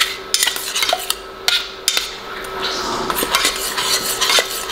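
Metal spoon stirring buffalo sauce and melting butter in a stainless steel saucepan, with repeated scrapes and clinks against the pan's sides and bottom.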